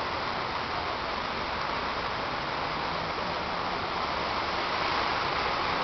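Strong hurricane winds driving sheets of heavy rain: a steady rushing noise that grows slightly louder near the end.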